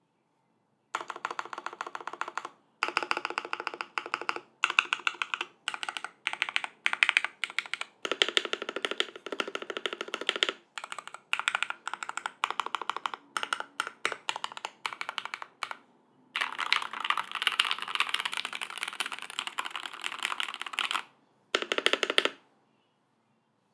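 Typing on a custom mechanical keyboard with lubed vintage Cherry MX Black linear switches on an aluminium plate and GMK doubleshot ABS keycaps. Runs of rapid keystrokes broken by short pauses, with a longer, denser run near the end.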